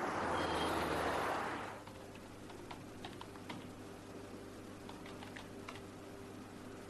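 Road traffic noise for about the first two seconds, then a computer keyboard being typed on: scattered, irregular key clicks over a low steady hum.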